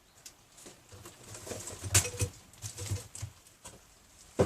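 Handling of small air-tool accessories: light plastic clicks and rustles with one sharper click, then two sharp knocks close together near the end, as when items are set down on a bench.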